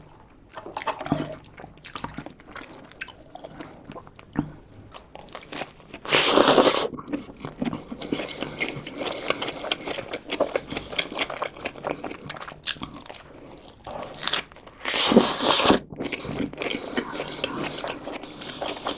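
Close-miked eating of a cheeseburger with a baked-mozzarella crust on the bun: wet chewing throughout, with two louder crunchy bites, about six seconds in and again about fifteen seconds in.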